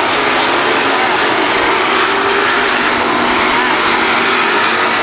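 Several dirt-track race cars running at speed in a pack, their engines blending into a loud, steady drone.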